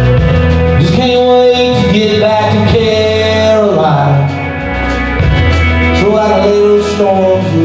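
Live country-rock band playing loud and steady, a lead melody sliding and bending in pitch over guitars and drums.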